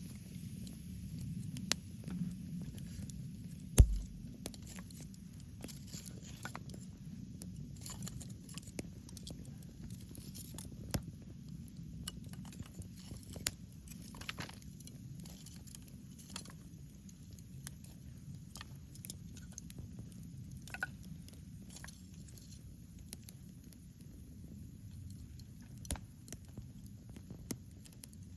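Wood campfire crackling, with irregular sharp pops and snaps, the loudest about four seconds in, over a faint low rumble.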